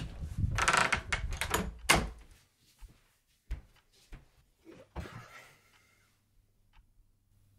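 A door knob turned and a door opened and shut, with a run of rattles and knocks and the loudest bang about two seconds in. A few scattered soft knocks follow, then faint ticks about once a second near the end.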